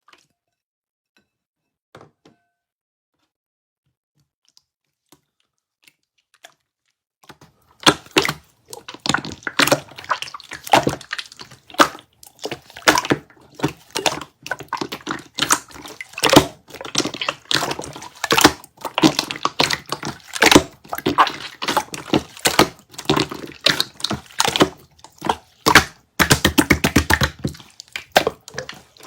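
Slime being pressed and worked by hand, making dense, irregular crackling and popping clicks that start about seven seconds in after a few faint ticks.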